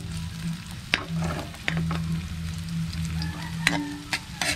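Diced turmeric sizzling in oil in an aluminium wok, stirred with a metal spoon that scrapes and clinks against the pan several times. A low steady hum runs underneath.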